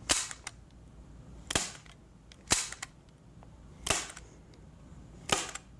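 Light-duty hand staple gun firing staples through wet watercolor paper into a Homasote board: five sharp snaps, about one every second and a half.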